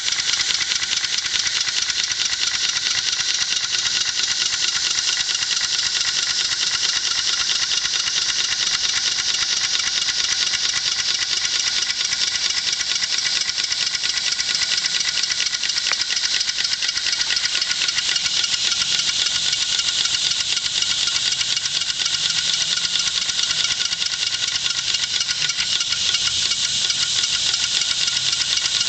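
Hand-made 1-inch-scale live steam traction engine running steadily on compressed air: a rapid, even exhaust beat with hissing air and mechanical clatter from the moving parts.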